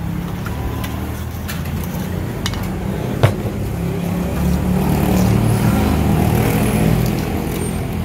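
A low, steady engine rumble that swells through the middle, with one sharp clink about three seconds in.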